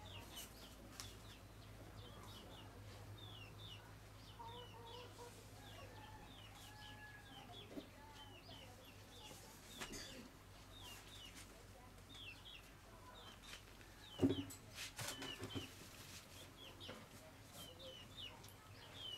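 Faint birds chirping: many short, high chirps repeating throughout, with a few lower calls and one louder sudden sound about fourteen seconds in.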